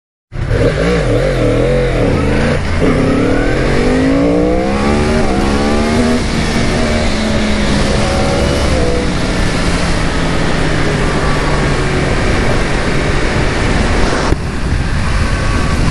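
2018 Yamaha R1's crossplane inline-four with an Austin Racing GP1R slip-on exhaust, revving and accelerating hard. The revs waver at first, then climb twice in quick succession (a rising pull, an upshift, another pull), then the engine runs on at a steady high pitch.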